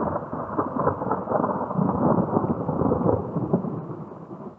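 Thunder crackling and rumbling, loud at first and dying away over about four seconds.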